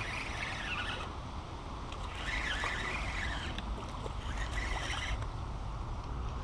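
Fishing reel being cranked in three short spells of whirring as a hooked white bass is reeled in, over a steady rumble of wind on the microphone.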